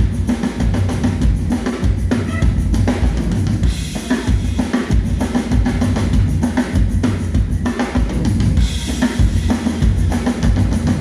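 A live band playing at a sound check, the drum kit to the fore with a steady bass drum and snare beat over a low pitched bass part.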